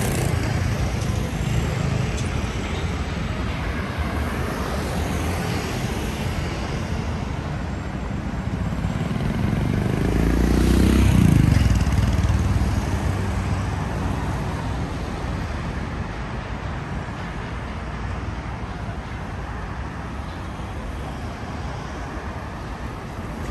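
City street traffic, with one vehicle passing close by that swells to its loudest about halfway through and then fades away.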